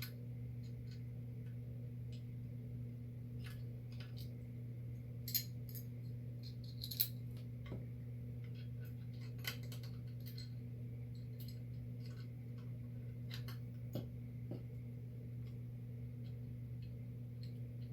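Small metal parts and hand tools clicking and clinking now and then during hand assembly of a laser engraver's frame, over a steady low hum.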